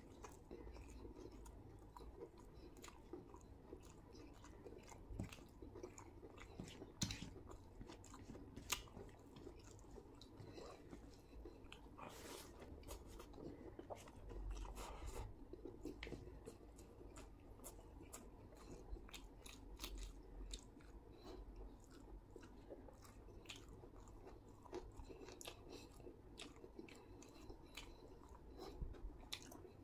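Faint chewing and wet mouth sounds of a man eating chicken biryani by hand: irregular soft smacks and clicks throughout, with a few sharper clicks around seven to twelve seconds in.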